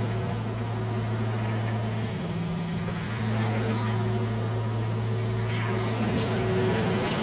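Tractor engine running at a steady speed with a low hum, driving the homemade circular sawmill through its PTO; the note shifts briefly about two seconds in, then settles back.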